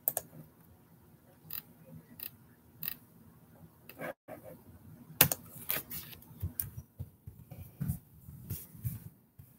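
Scattered, irregular clicks and taps from a computer mouse and keyboard, with a few soft low thumps in the second half.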